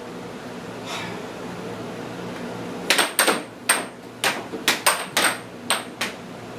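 Air hockey puck clacking off plastic mallets and the table's rails in a fast rally, about ten sharp knocks starting about three seconds in. Under them runs the steady hum of the table's air blower, heard alone before the rally.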